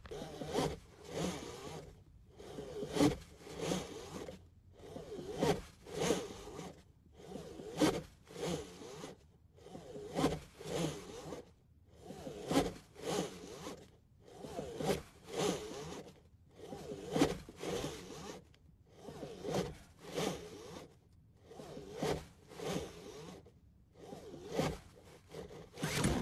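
A hand tool scraping or rasping back and forth in steady, even strokes, about three every four seconds, as the trapped man works at the SUV's interior to break out.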